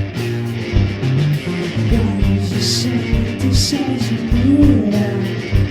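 Psychedelic rock band playing, with guitar over a steady drum beat, cymbal hits near the middle and a voice singing briefly in the second half.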